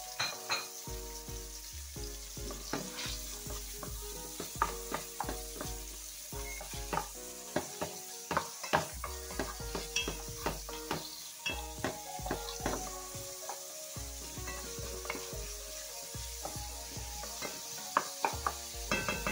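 Chopped onion, garlic and chives sizzling in olive oil in a metal pot as they sauté. A wooden spoon stirs them, knocking against the pot in frequent sharp clicks.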